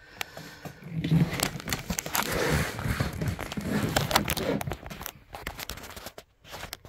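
Handling noise: rustling with many sharp clicks as heavy replica championship belts, leather straps with metal plates, are shifted about and hands brush close to the phone's microphone. It is busiest in the middle and dies down near the end.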